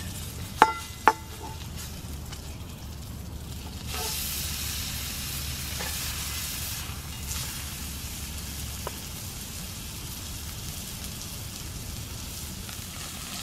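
Steak sizzling in a carbon steel frying pan on a campfire, with two ringing metal clinks of tongs against the pan about half a second apart near the start. The sizzle grows louder about four seconds in.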